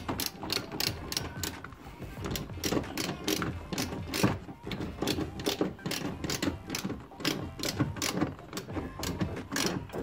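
Hand socket ratchet clicking in quick repeated strokes as a seatbelt anchor bolt is run in and tightened.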